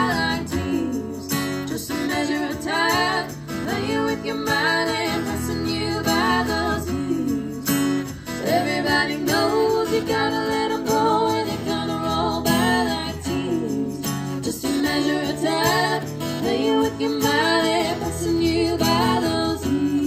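Live band music: women singing over a strummed acoustic guitar.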